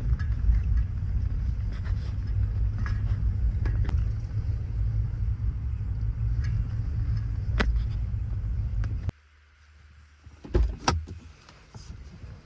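Steady low rumble of a car driving, with a few faint clicks over it. It cuts off abruptly about nine seconds in, and a few knocks follow shortly after.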